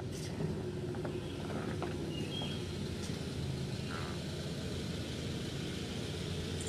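Steady low rumble of a vehicle engine, with a few faint clicks and two short high chirps a little over two seconds in.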